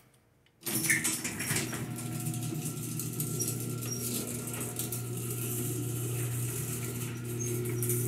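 Garage door opener running, a steady humming drone that starts abruptly about half a second in.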